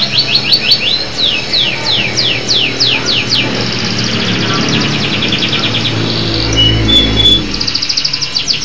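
Domestic canary singing a long, unbroken song of fast trills and rapid downward-sweeping notes, with a couple of short steady whistles about two-thirds of the way through. A low rumble sits briefly underneath at the same point.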